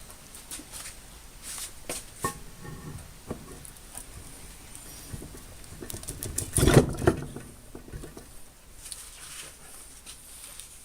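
Metal parts of a Charles Parker 974 vise being handled and fitted during reassembly: scattered light clicks and knocks, with a louder clatter about two-thirds of the way through.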